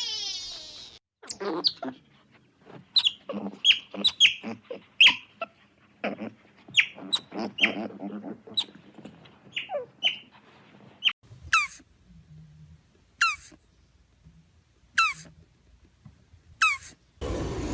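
Bird calls: a busy run of short, high chirps, each falling in pitch, then four single falling chirps evenly spaced about one and a half seconds apart.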